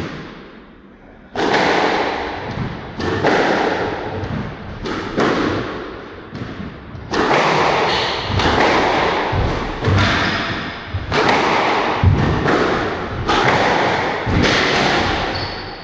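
Squash rally: racket strikes and the ball hitting the court walls, a sharp, echoing hit about once a second, starting about a second in.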